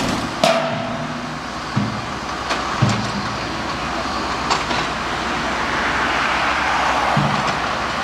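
A sledgehammer strikes a steel beam once about half a second in, giving a sharp clang with a brief metallic ring. A few lighter knocks follow over a steady rumble of site machinery.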